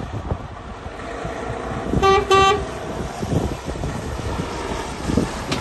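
Mercedes Actros tractor unit's horn giving two quick toots about two seconds in, over the low rumble of the truck's diesel engine as it drives past, with wind buffeting the microphone.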